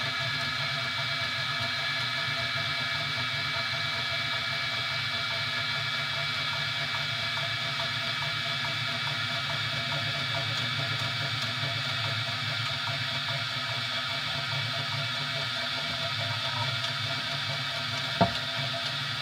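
3D printer running, a steady hum and whine of its motors and fans, with one sharp click near the end.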